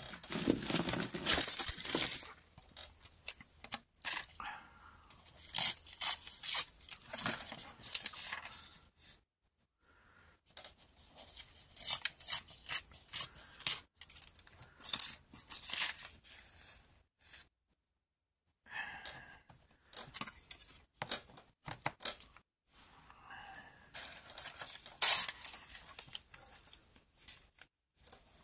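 A book page of thin, old paper torn along a deckle-edge tear ruler, ripping in a series of short tears with pauses between them.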